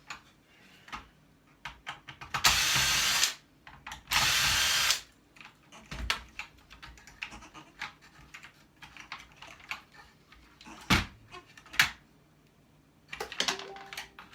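A power drill run twice in short bursts of just under a second each, unscrewing parts of scrap electronics. After it come scattered clicks and clatter of parts being handled, with two sharp knocks later on.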